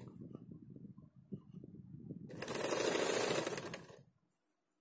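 Janome electric sewing machine stitching in one steady run of about a second and a half, starting a couple of seconds in. Before that run there are softer handling sounds as the fabric is repositioned under the presser foot.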